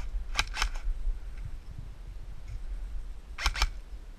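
An airsoft gun firing two quick shots, twice: once about half a second in and again about three and a half seconds in, each pair sharp and clicky. A low rumble runs underneath.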